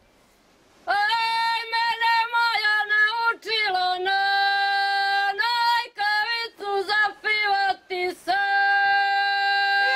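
Women singing ojkavica, the traditional unaccompanied folk song of the Dalmatian hinterland, sung with a shaking voice. The singing begins about a second in, in long held notes broken by short pauses between phrases.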